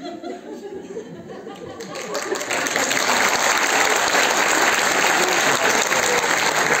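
Theatre audience applauding: voices for the first couple of seconds, then clapping breaks out about two seconds in and holds loud and steady.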